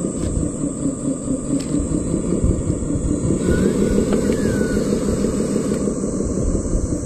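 Radio-controlled model tipper dump truck running, a steady mechanical drone with a regular low pulsing and a thin high whine, as it works with its bed tipped up.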